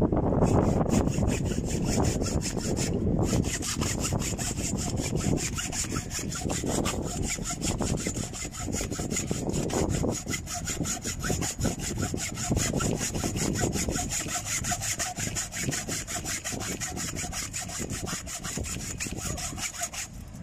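Hand saw cutting through a thick 120 mm power cable with fast, even back-and-forth strokes, pausing briefly about three seconds in.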